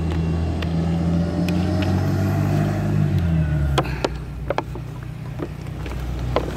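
Bus engine running with a deep, steady hum that drops in pitch about three seconds in, with a few sharp clicks in the second half.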